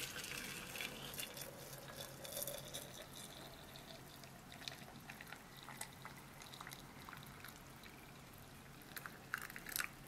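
Water pouring faintly from an electric kettle into a glass teapot, trickling and splashing. The stream is fullest in the first few seconds, then thins to scattered drips.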